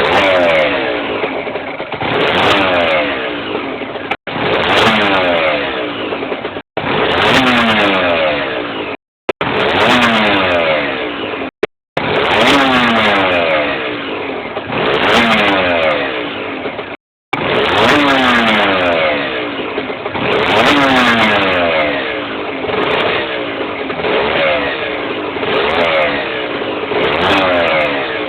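Aprilia RS 125's single-cylinder two-stroke engine blipped again and again, rising and falling back in pitch about every two and a half seconds, with a noise the owner finds suspect and takes for an engine problem. The sound cuts out completely for a moment several times.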